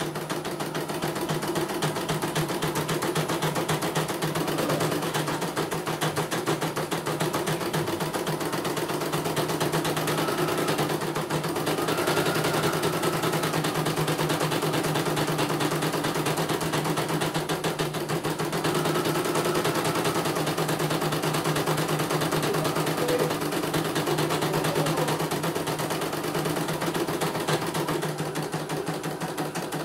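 CNY portable computerised embroidery machine stitching out a design: the needle runs in a rapid, even rhythm over a steady motor hum, with a faint whine coming and going twice as the hoop carriage shifts. It runs normally, showing none of the reported fault.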